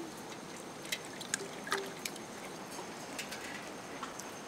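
Water lapping and dripping as colocasia leaves are rinsed by hand in a pot of water and lifted out, with a few light splashes and ticks over a soft steady hiss.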